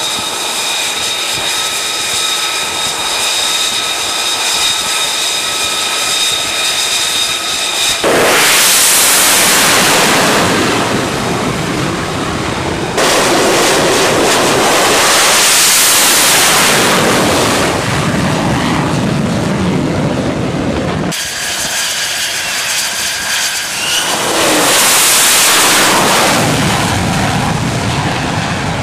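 F-35 fighter jets' F135 turbofan engines on a carrier flight deck: first a steady high whine from an engine turning at idle. Then, across several abrupt cuts, loud rushing jet roar of catapult launches, the pitch falling as a jet goes past.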